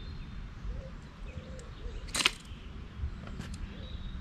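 A groundbait catapult fired once about two seconds in: a short, sharp snap as a ball of groundbait is launched.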